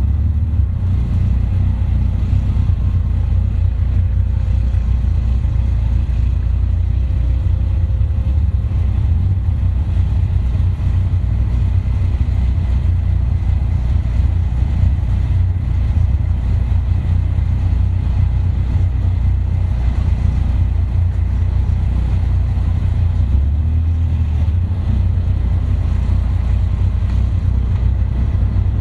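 Caterham sports car's engine running at low revs as the open car creeps along, a steady low rumble.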